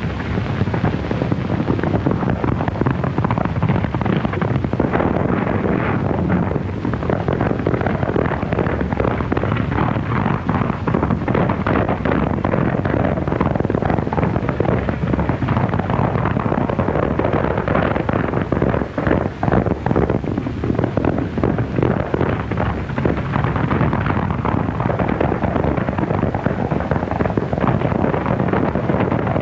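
Hooves of several horses galloping, a dense run of rapid clattering strokes, heard through the heavy hiss and crackle of a worn early-sound-film optical soundtrack.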